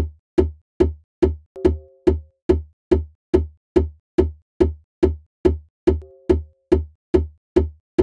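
A programmed GarageBand percussion loop playing: one sample repeats evenly about two and a half times a second, each hit a deep thud with a sharp click on top. A short pitched sample with two tones joins the beat about a second and a half in and again near six seconds.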